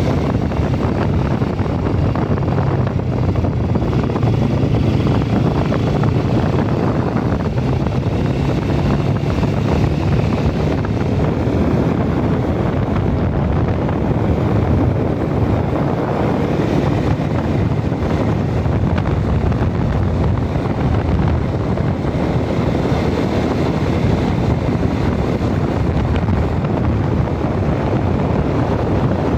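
Motorbike engine running steadily at riding speed, with wind rushing over the microphone.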